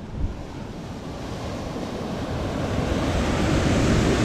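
Ocean surf washing in under the pier and breaking around the pilings, building steadily louder, with wind buffeting the microphone.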